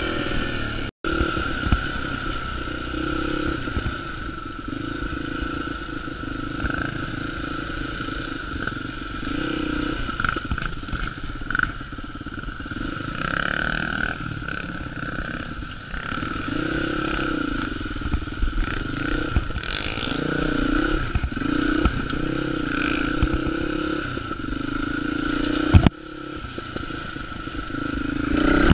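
Dirt bike engine running under way, its revs rising and falling as the bike rides over rough, uneven ground. The sound breaks off sharply twice, about a second in and near the end.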